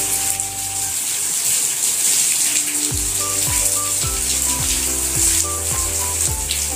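Moringa leaves frying in oil in a kadai, with a steady sizzling hiss. Background music plays over it, held notes at first and then a steady beat with bass about three seconds in.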